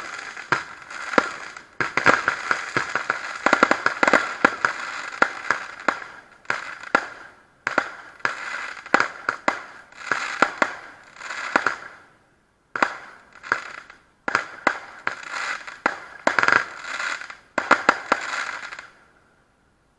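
Category F2 consumer fireworks going off: dense runs of sharp cracks and bangs with crackling, broken by a few short pauses, dying away near the end.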